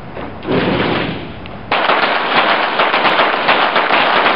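Several Olympic rapid-fire pistols, .22-calibre self-loading target pistols, firing a timed series together. The shots start suddenly a little under two seconds in and come dense and overlapping, ringing in the hall. A shorter burst of noise comes about half a second in.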